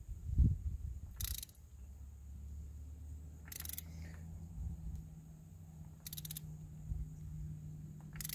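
Socket ratchet clicking in four short bursts about two seconds apart, its pawl ratcheting as the handle is swung back between turns, loosening the oil filter cartridge cap on a 2.7L turbo Ford Bronco engine.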